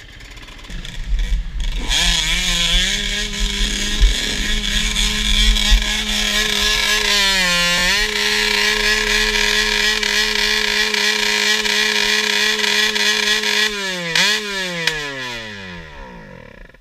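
Enduro motorcycle engine pulling away about two seconds in and running at steady revs along a gravel track, with a brief dip and recovery in pitch about halfway, then falling pitch near the end as the throttle is closed.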